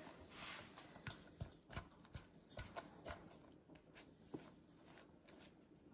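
Faint, irregular clicks and taps of a silicone spatula stirring sticky bread dough against the side of a stainless steel bowl.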